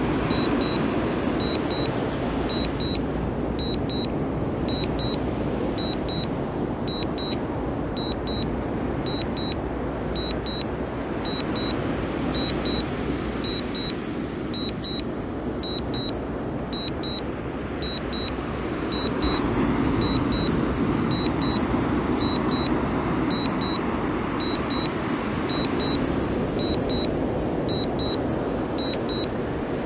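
DJI drone remote controller sounding its Return-to-Home alert: short double beeps repeating about once a second. Under it runs a steady rushing noise that is louder than the beeps.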